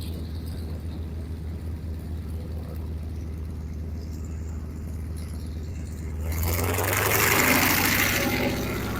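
Piston-engine propeller aircraft running with a steady low drone; about six seconds in, a louder rushing sound swells up and fades over two seconds as it passes close by.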